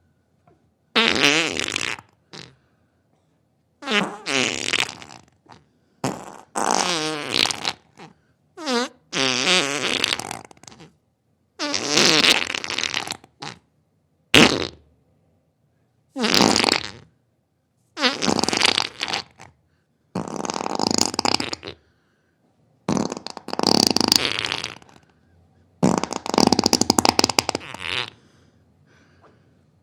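Diarrhea sound effects: about a dozen separate bursts of flatulent sputtering, each up to a couple of seconds long, with short silences between them. Some bursts buzz with a pitch and others are noisy splutters.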